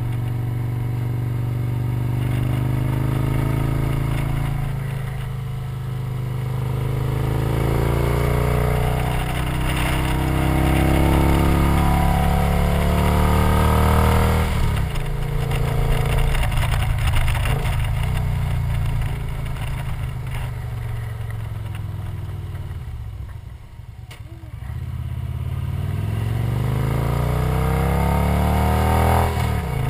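Victory motorcycle's V-twin engine under way, revving up in long rising pulls with a drop in pitch about halfway through, easing off briefly past two-thirds of the way, then accelerating again near the end, over steady wind noise.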